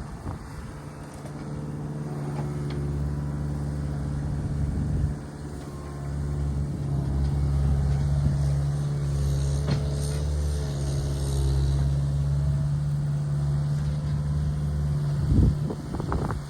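A machine engine running steadily, its pitch holding even, with a brief drop about five seconds in and a knock near the end.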